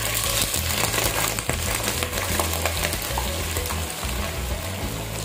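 Whole raw shrimp hitting hot oil in a nonstick pan, sizzling and crackling, as they are pushed off a plate with a plastic slotted spatula.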